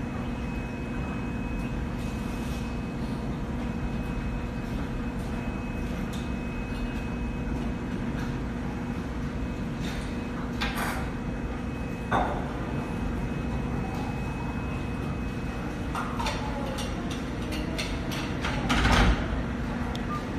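Steady low background hum and noise, broken by a few brief rustles and knocks, the loudest near the end.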